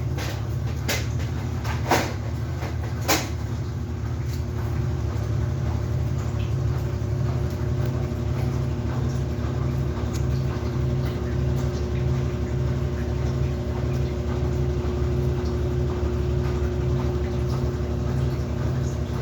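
Samsung 8 kg washing machine on its spin cycle: a steady hum from motor and drum with a gently pulsing low throb, running at an even speed. A few sharp clicks come in the first three seconds.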